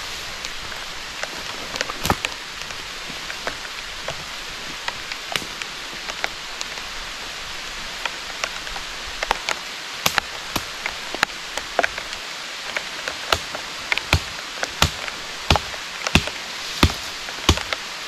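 Steady heavy rain, with many sharp taps over it that become louder and more regular, about one every two-thirds of a second, near the end.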